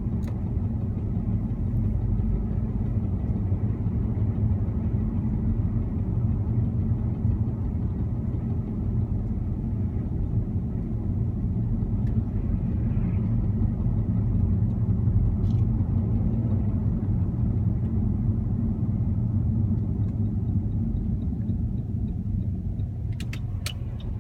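Saab 9-3 car running with a steady low rumble, and a few sharp clicks near the end. The owner has recorded the car for a knocking fault, but no distinct regular knock stands out from the rumble.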